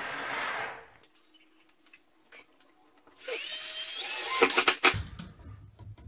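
Hand-sanding the cut edge of a piece of green board drywall, a steady rasping that stops about a second in. After a pause, a cordless drill spins up with a rising whine to drive a screw into the drywall, followed by a few knocks.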